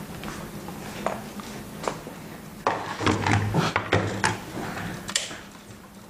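Hands handling the dishwasher detergent dispenser and its sensor parts: scattered small clicks and knocks, with a louder, busier stretch of clattering from just under three seconds in to a little past four.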